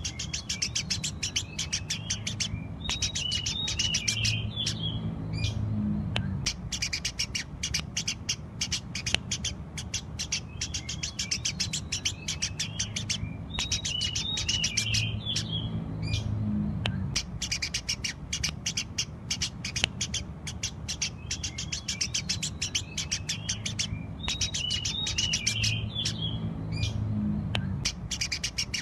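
Eurasian tree sparrows chirping rapidly and continuously, with a busier twittering chatter about three, fourteen and twenty-five seconds in. The same stretch repeats about every eleven seconds, as a looped recording would, over a low hum.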